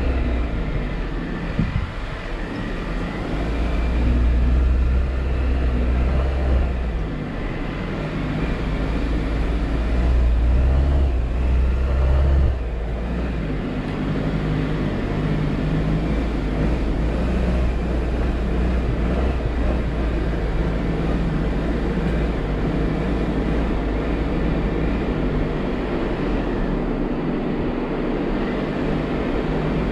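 Jeep Wrangler engine running as it drives along an off-road trail, a steady drone with a deeper rumble that swells twice in the first half.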